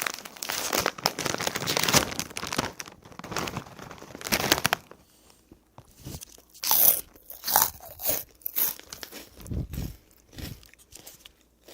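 Chips being bitten and chewed close up: dense crisp crunching for the first few seconds, then separate crunchy bites and chews with short pauses between them.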